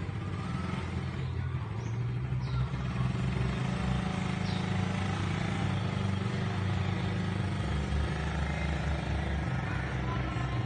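Small automatic motor scooter's engine running as it is ridden along, a steady low drone whose note shifts a couple of times.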